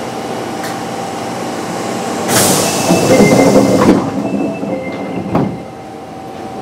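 Osaka Metro 23 series subway car standing at a station while its sliding doors close. A loud rush of noise from the doors lasts about a second and a half, a knock follows as they shut, and the car's equipment hums throughout.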